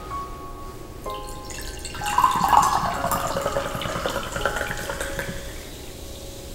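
Soda poured from a can into a glass, splashing and fizzing as the glass fills, starting about two seconds in and tapering off near the end.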